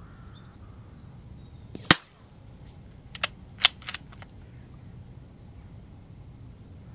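A CZ 457 Royal .22 LR bolt-action rifle firing one ultra-low-noise, low-velocity round about two seconds in, a single sharp crack. About a second later come three quieter clicks in quick succession, the bolt being worked to chamber the next round.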